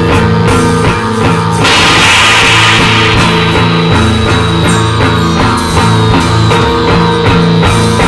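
Loud rock music with guitar and drum kit playing a repeating rhythmic chord pattern. A burst of noisy hiss comes in about one and a half seconds in, then a thin high tone is held through the rest.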